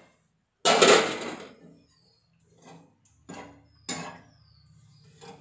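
Steel kitchenware knocking: a loud clatter under a second in that rings out briefly, then four lighter knocks of a steel ladle and plate against the cooking pan.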